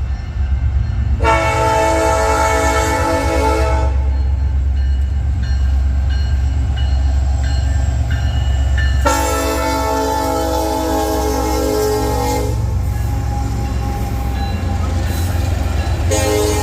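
Union Pacific locomotive air horn sounding a multi-note chord: two long blasts, with a third starting near the end, over a steady low rumble.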